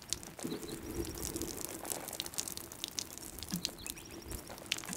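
Water from a watering can's rose showering down onto a hat, shirt and a percussion revolver, a dense, irregular patter of splashing drops that starts at once and keeps going.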